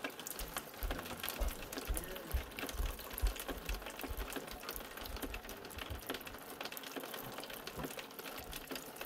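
Light rain pattering steadily, with many small drips and scattered soft low thumps.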